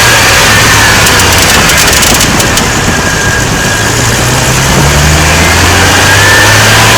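A loud, steady engine running, its low hum shifting pitch about five seconds in.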